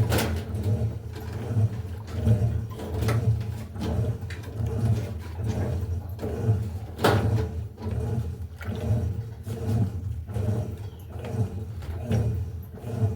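Electrolux LTE08 top-load washing machine in its agitation stage: a low motor hum with water churning, pulsing a little more than once a second as the wash action reverses back and forth. A sharp knock about seven seconds in.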